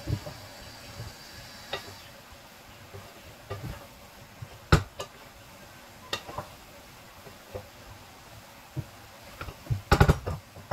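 Wooden spatula stirring fried rice in a metal pan, scraping and knocking against the pan, over a faint steady sizzle. There is one sharp knock a little under five seconds in and a cluster of louder knocks near the end.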